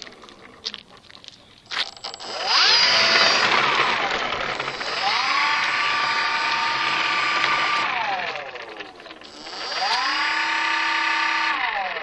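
Electric motor and propeller of an RC Cessna model whining as the throttle is opened and closed while taxiing. The pitch climbs, drops, then twice climbs and holds steady for a few seconds before falling away, after a few light clicks at the start.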